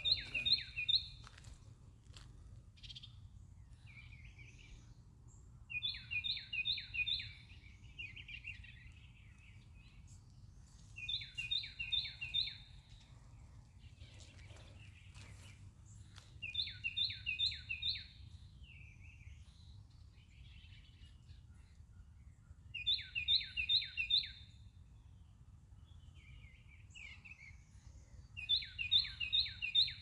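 A songbird singing a short phrase of about four quick down-slurred whistled notes, repeated six times about every five to six seconds, with a few softer chirps in between, over a steady low background rumble.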